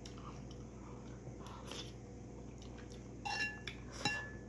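A metal spoon clinks twice against a ceramic bowl, with a short ring each time, about three and four seconds in. Faint eating and chewing sounds come before the clinks.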